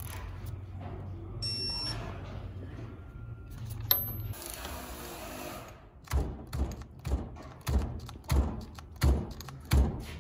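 Earthquake XT cordless ratchet stalled against a bolt torqued to about 41 ft-lb, knocking over and over, about twice a second, without breaking it loose: it falls short of its rated 60 ft-lb. Before that there is a low steady hum and a short electronic beep.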